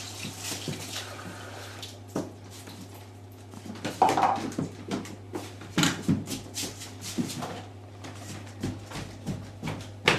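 Scattered knocks, clicks and clatter of household handling, over a steady low hum.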